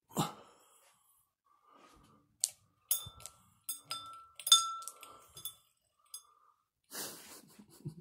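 A run of light clinks and taps on a ceiling fan's light fixture, several with a short ringing tone. A breathy exhale about seven seconds in.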